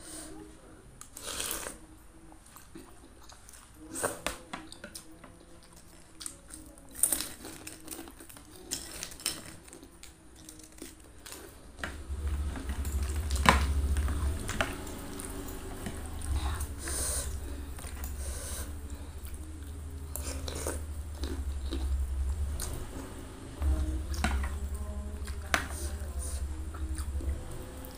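Close-miked eating sounds of a spicy noodle soup with egg-filled meatballs: chewing, with sharp clicks of a fork and spoon on the plate. About halfway through, a low rumble starts underneath and drops out twice.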